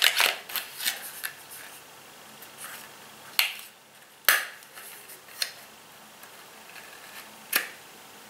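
Small sharp clicks and light handling noises from a small plastic cosmetic sample tube and its packaging being handled, a few seconds apart, the clearest about halfway through and near the end.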